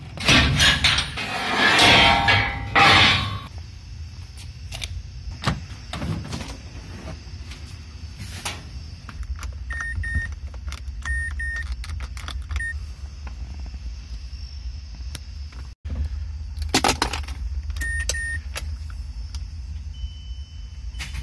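Metal clanking and rattling as a steel trailer ramp's latch pin is worked, loudest in the first few seconds. Then keys jingle at a Mazda CX-9's ignition, with clicks and short repeated chime beeps from the car as the key is turned on; the engine is not running.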